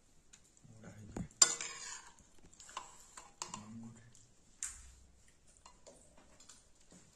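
Metal serving spoon scraping and clinking against a steel kadai of curry and a steel plate, with a sharp clink about a second and a half in and a few lighter clinks after.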